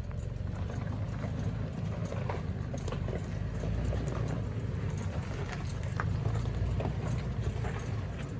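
2018 Toyota 4Runner TRD Off-Road's 4.0-litre V6 running steadily at low speed while the tyres crawl over rock and gravel, with scattered clicks and cracks of stones under the tyres.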